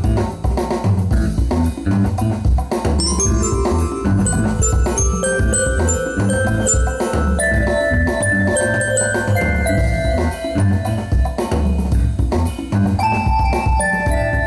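Instrumental music: a drum kit beat under a melody of clear, held notes that step up and down.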